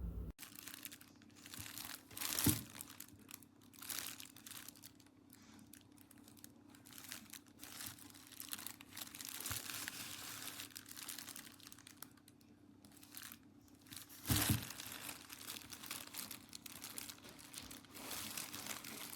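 Irregular crinkling and rustling handling noise, with a sharp knock about two and a half seconds in and another near fourteen seconds.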